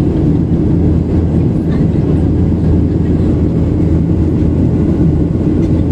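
Steady cabin noise of a Boeing 737-800 in flight, heard from a passenger seat: its CFM56-7B turbofans and the airflow making an even, loud, low rumble as the airliner climbs out.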